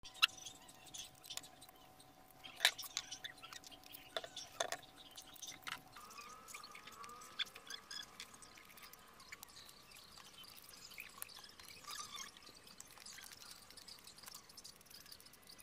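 Faint scattered clicks, knocks and short scrapes of a knife peeling and cutting a sponge gourd, over a faint steady background tone that shifts in pitch about six seconds in.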